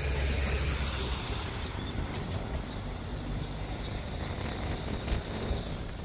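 Outdoor ambience: a steady low rumble, strongest in the first second, with a bird giving short high chirps about twice a second.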